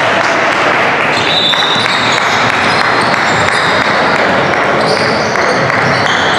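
Basketball being dribbled on a gym floor during a game, over a steady din of voices in the hall, with a few short high squeaks.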